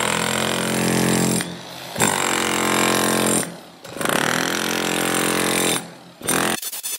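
Electric demolition hammer chipping concrete, running in bursts: three of about one and a half seconds each with short pauses between, then a brief fourth burst near the end.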